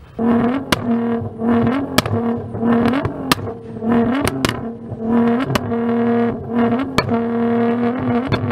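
Nissan GT-R's twin-turbo V6 held at high revs, its pitch dipping briefly and coming straight back again and again. Sharp exhaust cracks pop out about ten times.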